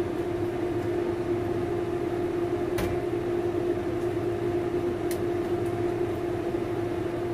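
Steady hum of a kitchen appliance motor running, one fixed tone over a low rumble. Two short, sharp clicks come about three and five seconds in.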